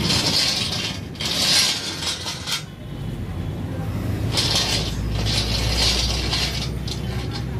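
Welded steel cart frame rolling over rough concrete and paving on its four caster wheels as it is pushed to test it. It rattles and grinds in two spells, with a pause of about a second and a half in the middle.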